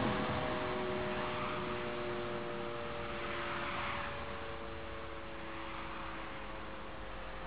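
Faint, steady siren tones at several pitches held in the distance during a fire-alarm siren test, over a background hiss that swells gently twice.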